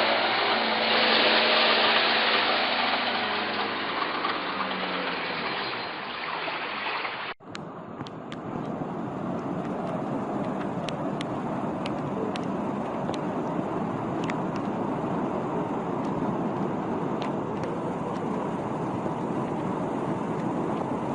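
Steady vehicle engine noise, cut off abruptly about seven seconds in. A different steady rushing noise follows, with a handful of sharp clicks over it.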